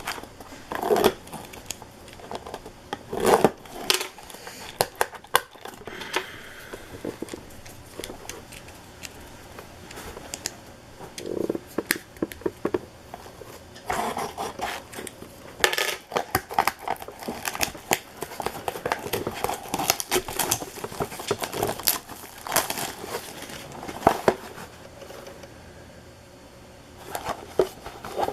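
Trading card packs being opened and handled: wrappers crinkling and tearing, with irregular clicks and rustles of cards.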